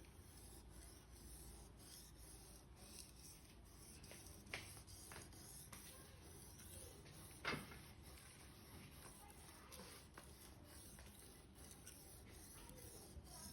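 Faint rubbing strokes of a knife blade being sharpened, with two light taps about four and a half and seven and a half seconds in.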